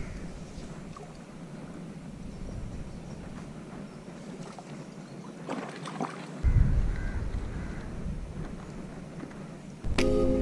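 Quiet outdoor riverbank ambience with faint rustling. About six seconds in, a sudden low rumble of a jacket brushing against the body-worn camera's microphone fades away. Music starts near the end.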